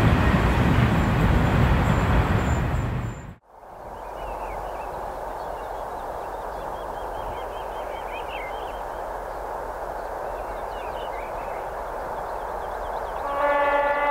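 Freight train hauled by an ST44 diesel locomotive rumbling loudly past; the sound cuts off abruptly about three seconds in. It is followed by a steadier hiss with birds chirping, and near the end a train horn starts a loud, steady blast.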